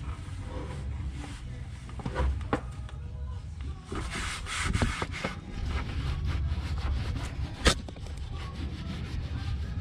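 A shop rag rubbing and wiping around the oil filter mount, with scattered handling clicks and one sharp click late on.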